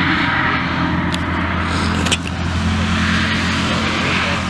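Anakonda rescue hovercraft's engine and fan droning steadily. A single sharp click about halfway through.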